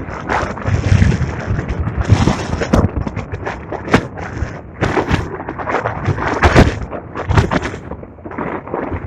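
Strong gusty wind buffeting the microphone, with a low rumble and many irregular sharp thumps and pops.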